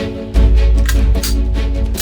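Background music: sustained instrumental notes with sharp percussive hits, and a heavy low bass that comes in about a third of a second in.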